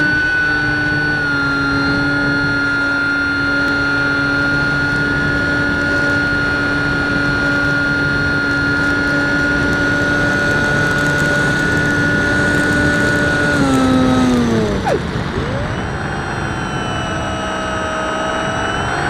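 Electric motor and propeller of a large Skysurfer RC glider, heard through its onboard camera: a steady high whine at cruise throttle over a rush of air. About 14 seconds in the pitch slides down as the throttle is cut, and then it climbs again as the throttle comes back up.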